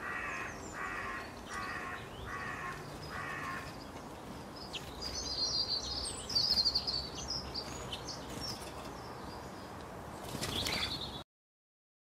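European starling calling: five harsh, evenly spaced calls in the first few seconds, then a run of high chattering whistles and clicks. The sound cuts off abruptly near the end.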